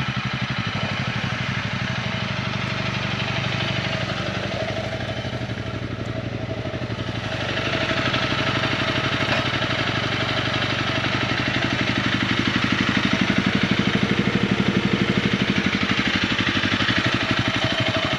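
Single-cylinder Honda CRF250 dual-sport motorcycle engine idling steadily, with an even firing beat.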